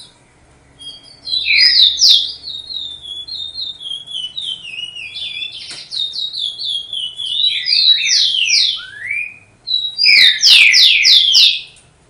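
A songbird singing a long, varied song of quick chirps and whistled notes. After a brief pause near the end it gives a loud run of fast downslurred notes.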